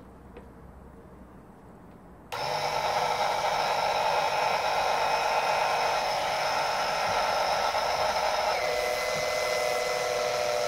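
After a short quiet lull, a small 12-volt electric fluid pump switches on abruptly about two seconds in and runs steadily, a motor hum with several whining tones, pumping fresh CVT fluid into the transmission. Its tone shifts slightly near the end.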